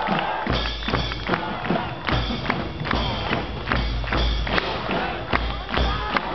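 A large drum and a gong played on the float in a steady beat, with deep drum thumps and metallic gong strokes. Shouts from the bearers and crowd come over it.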